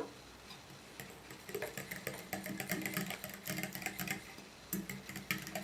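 A fork clinking against a bowl in a quick, irregular run of light clicks while mashed banana is stirred into water, over a faint low hum.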